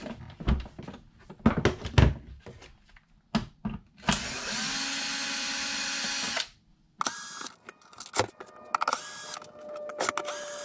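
Clatter of cables and clamps being handled. Then a small cordless screwdriver runs steadily for about two seconds and is triggered in several short bursts, backing out the jump-starter case screws.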